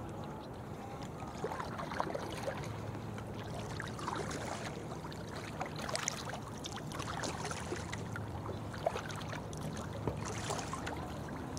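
Kayak paddle blades dipping into and pulling through river water, with drips, small splashes and water trickling along the hull at a steady stroke.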